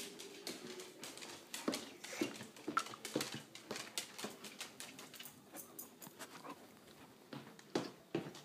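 A dog moving about on a hardwood floor: irregular light clicks and taps of its claws, with a few faint whimpers.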